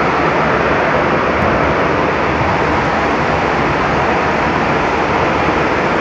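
Loud, steady industrial noise from an Archer Daniels Midland processing plant: an even rush with no pitch or rhythm, unchanging throughout.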